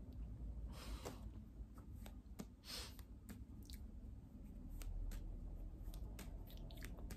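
Faint breathing: two slow, quiet breaths, about a second in and near three seconds, taken during a breathing exercise, with small mouth clicks scattered between them.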